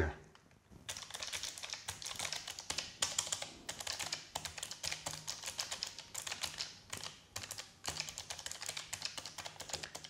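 Fast, continuous typing on a Keychron K1 Version 3 low-profile mechanical keyboard, starting about a second in: a dense run of key clicks from switches that are not the clicky blue type.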